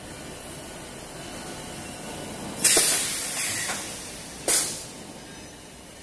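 HDPE extrusion blow molding machine running: two sudden blasts of compressed air hissing from its pneumatic system, the first about two and a half seconds in and tailing off over a second or so, a shorter one about two seconds later. Under them is the steady noise of the running machine.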